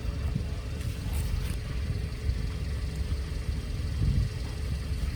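A car running at low speed, a steady low rumble.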